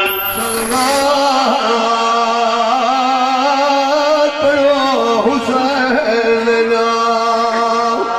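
A man singing a long, drawn-out phrase of devotional recitation in held notes that waver up and down, breaking off briefly for breath a few times.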